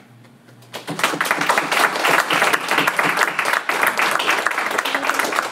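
A small group clapping their hands in applause, breaking out about a second in and carrying on steadily.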